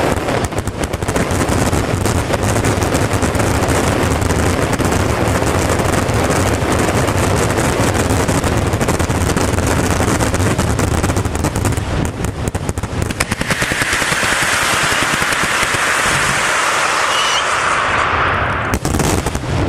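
Fallas castillo fireworks finale: a continuous, rapid barrage of firecracker bangs and crackles, like machine-gun fire. About two-thirds of the way through, a loud hissing rises over the bangs for a few seconds before it thins out and more bangs follow near the end.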